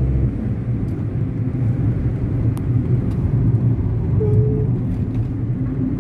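Steady engine and road rumble heard from inside a moving vehicle travelling along a highway.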